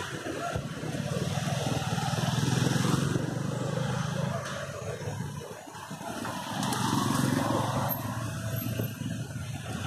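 Motorcycle and car engines passing on a road: a steady engine hum that swells, loudest about two to three seconds in, dips briefly and swells again about seven seconds in.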